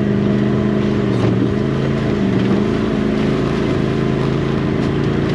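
2018 Polaris General side-by-side's engine running steadily as it drives along a muddy trail, its pitch easing off slightly about two seconds in.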